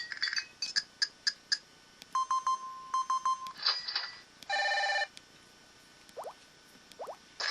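LG-SD200 mobile phone playing its built-in electronic effect tones one after another: quick beeps and chimes, a repeated steady beep about two seconds in, a short buzzy tone around the middle, and two faint rising chirps near the end.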